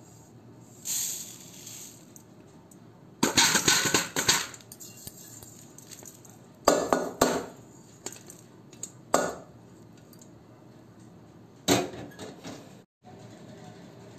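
A steel pan and metal spoon scraping and knocking against a steel plate as roasted niger seeds are tipped out onto roasted peanuts, in several short clattering bursts.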